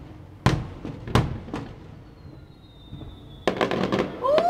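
Aerial fireworks shells bursting with sharp bangs, three in the first couple of seconds. A faint high whistle follows, drifting down in pitch. From about three and a half seconds in comes a rapid crackle of many small pops as crackling stars go off.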